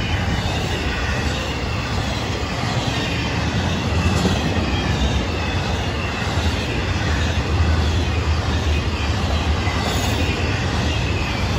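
Florida East Coast intermodal freight cars rolling past: a steady rumble of steel wheels on the rails, with faint high squealing from the wheels.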